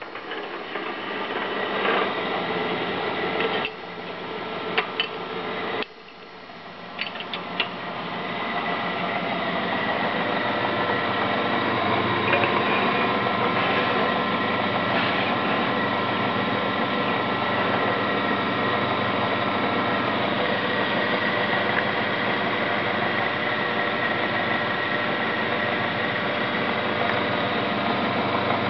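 Homemade wood lathe with an 1100 W electric motor running. It cuts out twice in the first six seconds, with a few sharp clicks, then spins back up over about four seconds and runs steadily.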